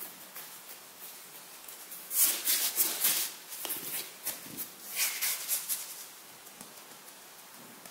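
Hands rolling and pressing a log of bread dough on a floured silicone baking mat: soft rubbing and brushing, loudest for about a second starting two seconds in and again briefly around five seconds.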